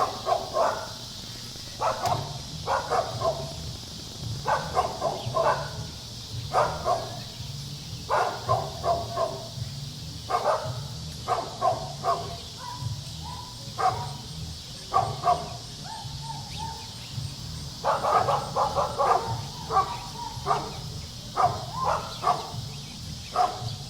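Dog barking repeatedly in short runs of two or three barks every second or two, over a steady high hiss.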